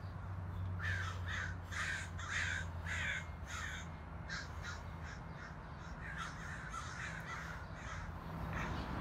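Crow cawing: a quick series of about six caws about a second in, then fainter caws continuing.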